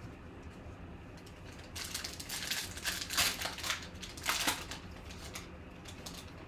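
Foil trading card pack crinkling and tearing as it is opened, a dense rustle for about three seconds starting about two seconds in.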